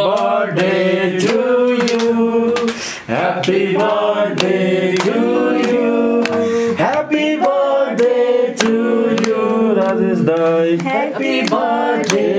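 A man singing a song, holding long notes and gliding between them, over a steady musical backing.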